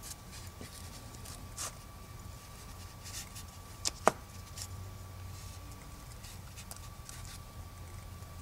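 Quiet handling sounds of a small plastic parts bag being crinkled and rubbed as fingers work lube onto a power steering pump's rubber seal, with scattered light ticks and one sharp click about four seconds in. A faint steady hum runs underneath.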